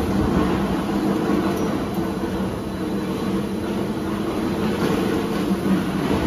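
PE pipe extrusion line running, with its pipe coiler winding black polyethylene pipe onto the reel: a steady machine hum and rumble.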